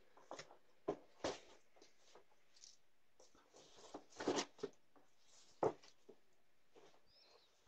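A handful of short scuffs, rustles and knocks from a parcel being handled on the doorstep, the loudest about four and five and a half seconds in, picked up through a doorbell camera's microphone.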